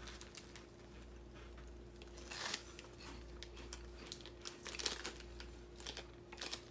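Plastic snack wrappers crinkling in the hands and puffed corn snack sticks (umaibo) being crunched and chewed, in a few short rustling bursts about two and a half and five seconds in, over a faint steady hum.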